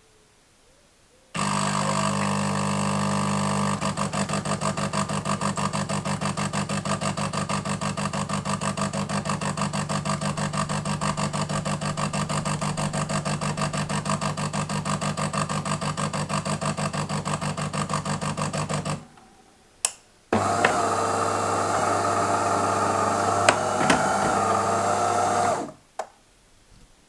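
De'Longhi Magnifica S bean-to-cup espresso machine running noisily through its start-up: a loud buzzing hum of pump and motor for about 17 seconds, pulsing rapidly for most of it. It stops, clicks, then runs again for about five seconds with a whine over the hum.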